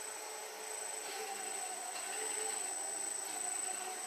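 Small electric motors of an RC model tug boat running as it turns in place in the water, a steady whine that wavers in pitch and loudness, over a thin, very high steady tone.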